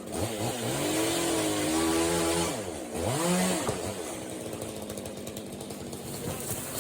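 Chainsaw engine revving up and back down twice, its pitch rising and falling, over steady background noise; a sharp click right at the end.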